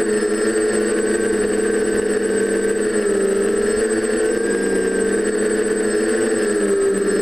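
Quadcopter's four DJI 920Kv brushless motors spinning 9x5 Graupner E-prop propellers in flight: a steady buzzing hum whose pitch wavers slightly up and down.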